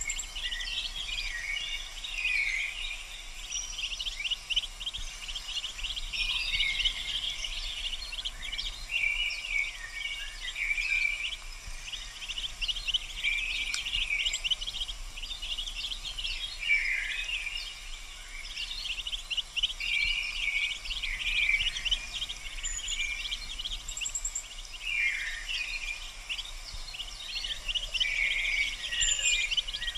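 Mallard ducklings peeping, a dense, continuous chatter of short high peeps, some sliding downward.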